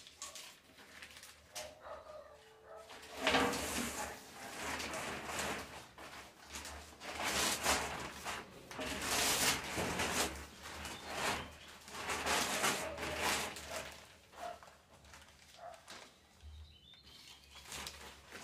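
Thin black plastic bag crinkling and rustling as it is pulled off a stovetop and bunched up, in repeated crackly spells that die down near the end.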